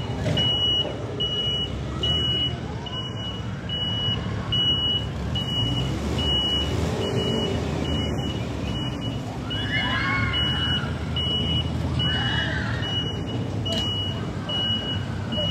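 A construction vehicle's reversing alarm beeping steadily, a little over one high beep a second, over the low rumble of working site machinery.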